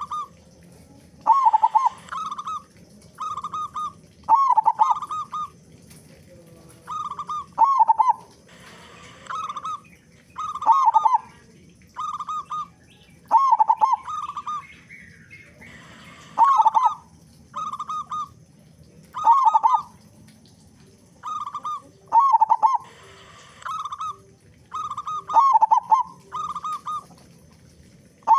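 Zebra dove (perkutut) cooing: short, clipped coos in clusters of one to three, some falling slightly at the end, repeating every second or two.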